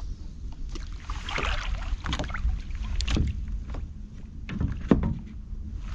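Wind buffeting the microphone in a low rumble over water lapping at a small boat, with scattered knocks and clicks; the sharpest knock comes about five seconds in.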